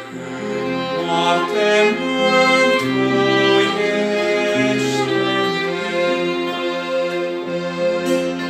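Slow instrumental passage of a hymn, with bowed strings holding sustained chords over a bass line that steps to a new note about once a second.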